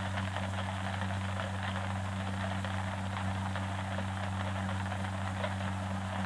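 Steady low electrical hum under a continuous crackling static hiss.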